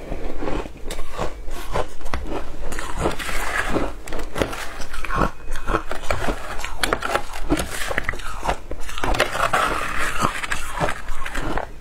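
Shaved ice crunching in rapid, irregular crunches as it is bitten and chewed, with a metal spoon scraping and scooping through the ice in the bowl.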